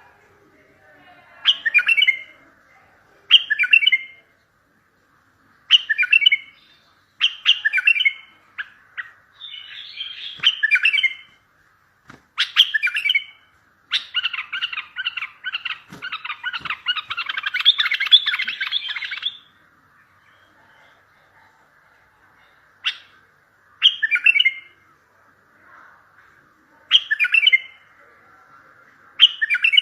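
Bulbul singing: short, bright warbled phrases repeated every couple of seconds, with one longer unbroken run of song in the middle.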